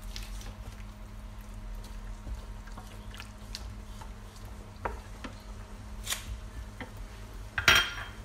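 Wooden spatula stirring lamb in a simmering liquid inside an Instant Pot's metal inner pot, giving scattered light knocks and scrapes and one sharper clatter near the end, over a steady low hum.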